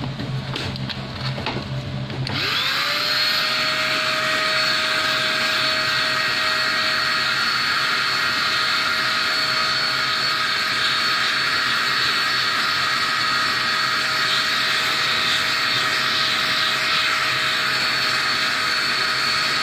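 Vacuum cleaner switched on about two seconds in, its motor whining up to speed, then running steadily with a loud rushing whine as it sucks dust from inside an electronic keyboard.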